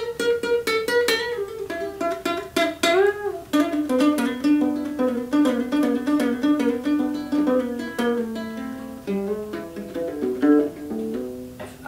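Small-bodied acoustic guitar fingerpicked: a melody of single plucked notes, with one note bent up and back about three seconds in.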